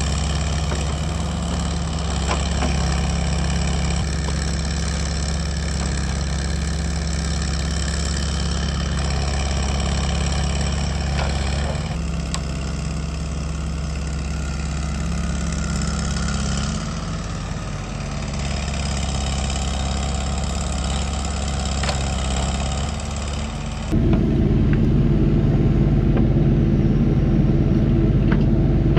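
Excavator diesel engine running steadily while working. About 24 seconds in the sound changes suddenly to a louder, deeper engine note.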